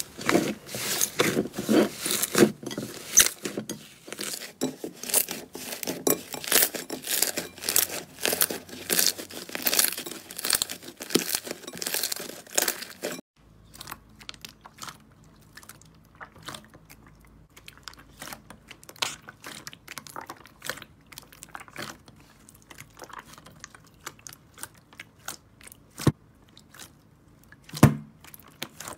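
Hands squeezing and folding thick slime make a dense run of loud crackling, popping clicks. About thirteen seconds in it cuts to softer, sparser squishing pops and clicks as a puffy slime is pressed and kneaded in a metal bowl.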